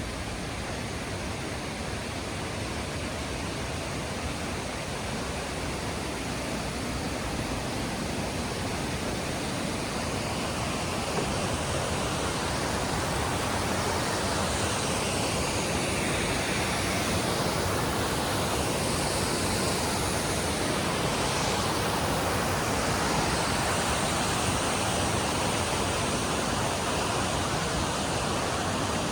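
Waterfall: a steady rush of falling water that grows a little louder partway through.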